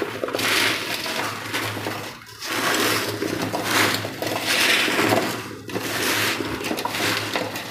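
Hands mixing chopped raw mango, gunda berries and coleus root (garmar) with salt and turmeric in a large metal pot: the pieces rustle and clatter against the pot's sides. The mixing comes in three stretches, with short breaks about two seconds and five and a half seconds in.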